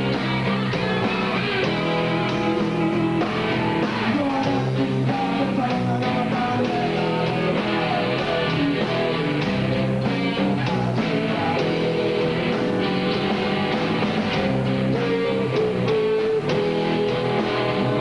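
A rock band playing live: guitars over a drum kit, steady and continuous.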